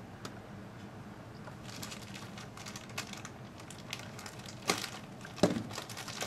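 Plastic parts bag crinkling as it is handled and cut open with scissors, with two sharp clicks near the end, the second the louder.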